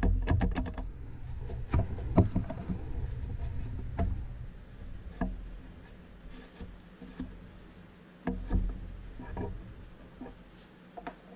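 Small metal clicks and knocks from hand tools and parts while a selector rod joint is fitted on top of a BMW ZF five-speed transmission. A quick run of clicks comes in the first second, then scattered clicks and knocks that grow fewer and quieter toward the end.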